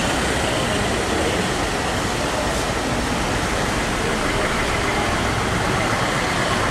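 Steady street din of road traffic and the voices of a marching crowd, with no single sound standing out.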